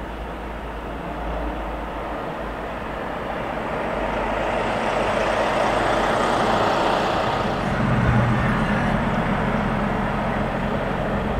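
Road traffic noise, a steady low rumble that swells to a peak about halfway through and then eases, like a vehicle passing by.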